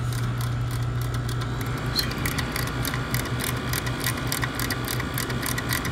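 Refrigeration compressor running with a steady low hum while a ratcheting service-valve wrench clicks rapidly from about two seconds in, cranking the suction service valve to front-seated so the compressor can be tested on whether its valves still pull down.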